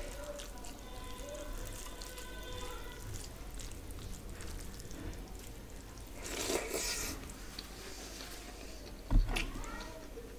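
Wet, squishy sounds of rice being mixed with curry gravy by hand. About six seconds in, a louder burst of eating sounds as a handful goes into the mouth. Just after nine seconds there is a single sharp knock, the loudest sound.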